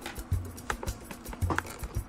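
Background music with a steady low beat.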